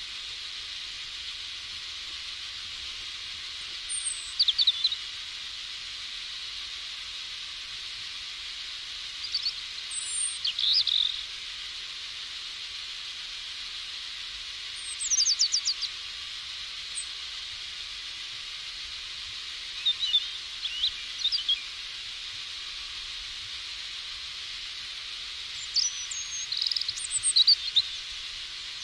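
Steady hiss of light rain, with small songbirds chirping in short bursts of a few quick, high notes every five to six seconds.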